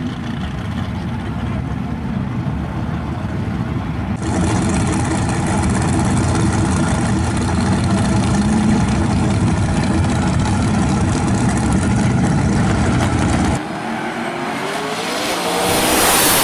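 Drag-racing car engines running loud at high revs, with the sound changing abruptly twice. Near the end an engine accelerates hard with a rising pitch, as a car launching down the track.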